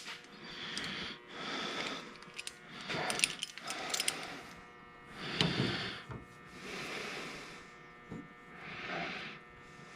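Heavy breathing and straining in repeated swells, with a few light metal clicks in the middle.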